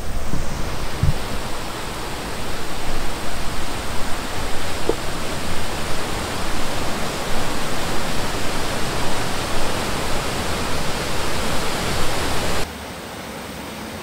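Waterfall and rocky mountain stream rushing close by: a loud, steady hiss of falling and splashing water. It cuts off suddenly near the end, leaving a much quieter background.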